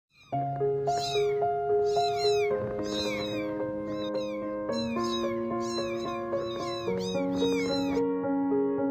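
Kitten mewing in short, high-pitched cries, about two a second, that stop about a second before the end. Slow held music chords play underneath.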